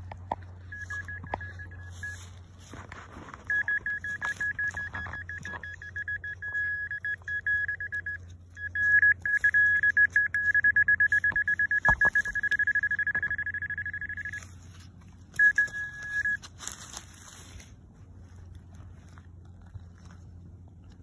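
Handheld metal-detector pinpointer beeping in the soil: a single high tone in short beeps that quicken into rapid pulses, then holds as a continuous tone for several seconds before a last brief beep, signalling metal right at the probe's tip.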